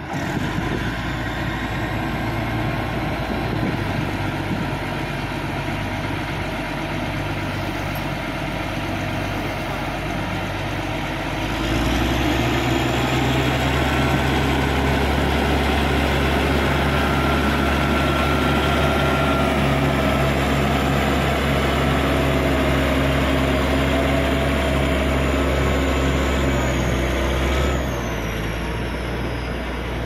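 Heavy diesel engines of a Caterpillar D6G crawler bulldozer and a Hitachi 200 excavator running steadily while the machines work in deep mud. The engine sound grows louder and heavier about twelve seconds in and drops back near the end.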